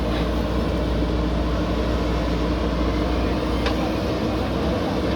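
Diesel engine of a JCB backhoe loader running steadily under work, with a brief light click about two-thirds of the way through.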